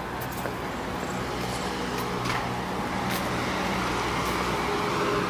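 Road traffic: a steady rush of tyres with a low engine hum, slowly growing louder.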